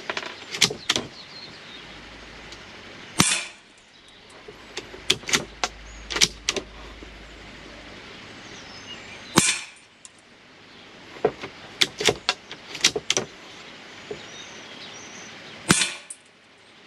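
Citadel TRAKR .22 LR bolt-action rifle fired three times, about six seconds apart, each shot a sharp crack with a brief ring. Between shots come clusters of small metallic clicks as the bolt is worked to chamber the next round.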